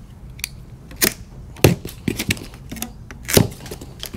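Plastic packing straps on a cardboard shipping box being cut and pulled loose: a series of sharp snaps and clicks, the loudest about a second in, again shortly after, and near the end.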